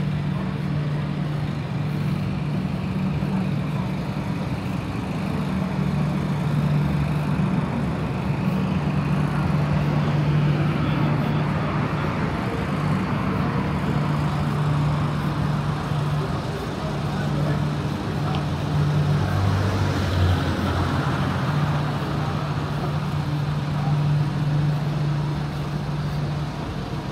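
City street traffic: cars running along the road with a steady low drone underneath, swelling for a while in the middle as vehicles pass.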